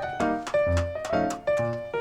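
Background music: pitched notes struck in a steady, even rhythm, about three to four a second.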